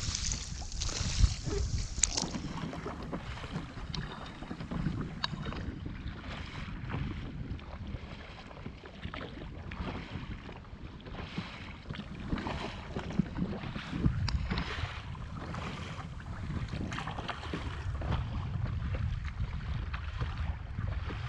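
Kayak paddles dipping and splashing in a regular stroke rhythm, a soft swell of water noise every second or so, with a few sharp knocks on the plastic hull or paddle shaft. Wind buffets the microphone throughout, giving a low rumble underneath.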